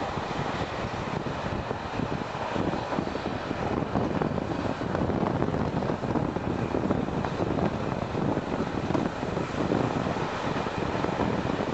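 Passenger train running at speed, heard from an open coach window: a steady rumble of wheels on rails mixed with wind rushing past the microphone.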